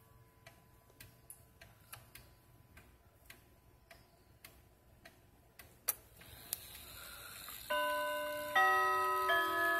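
Hamilton Headmaster wall clock ticking about twice a second, with two sharper clicks near the middle as its minute hand is brought up to the hour. About eight seconds in, the clock starts its hourly chime: three ringing notes, one after another, each held on.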